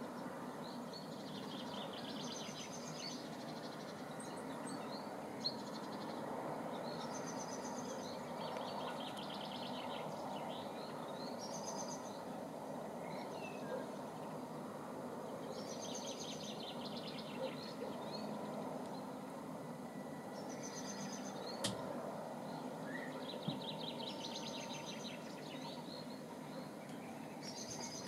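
A songbird singing a short trilled phrase, repeated about every four seconds, over steady background noise. A single sharp click comes about three-quarters of the way through.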